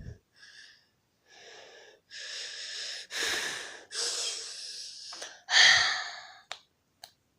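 A person breathing out hard, breathy and noisy, about six times in a row, getting louder, the loudest near the end, followed by a few small clicks.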